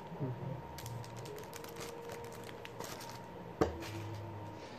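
Packaging and small items being handled while unboxing: a quick run of small crinkly clicks, then one sharp click about three and a half seconds in.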